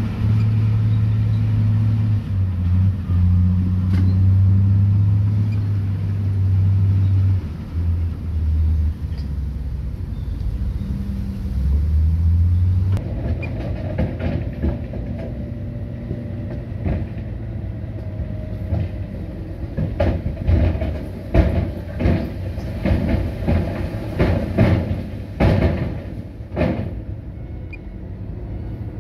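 Heavy diesel earthmoving machinery at work: a deep engine note that shifts up and down in pitch for about the first half, then, after an abrupt change, rougher running with a quick series of sharp knocks and clatter in the second half.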